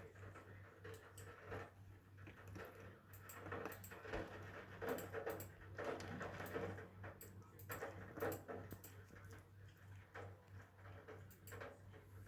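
Faint, irregular patter of raindrops as the rain tails off, over a steady low hum.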